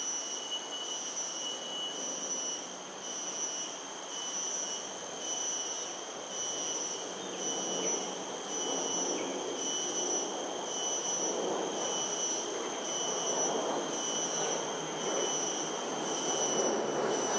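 High-pitched insect call: a shrill whine pulsing in a steady, even rhythm, over a low rushing hiss.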